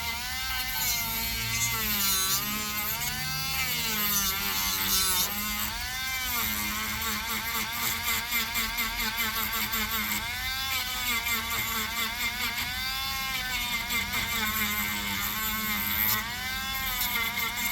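Mitsubishi Lancer Evolution engine running, revved up and back down repeatedly, each rev rising and falling over about a second.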